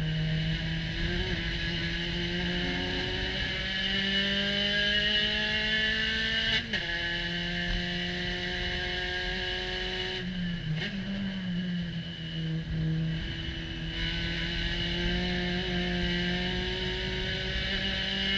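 Spec Racer Ford SRF3 race car's engine heard from the open cockpit under hard acceleration: the revs climb, break for an upshift about a third of the way in, then drop with a lift and downshift around ten seconds in before climbing again. A steady rush of wind and road noise runs underneath.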